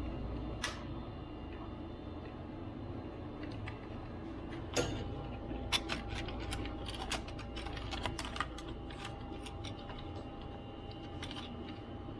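Scattered light clicks and taps of small parts being handled during a laptop repair, irregular rather than a steady typing rhythm, over a steady low hum.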